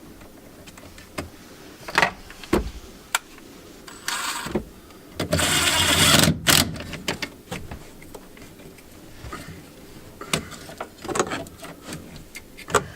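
Scattered sharp clicks and knocks of hand work on a car interior, handling wiring and fitting parts back in place. A short hiss comes about four seconds in, then a louder rushing noise lasting just over a second.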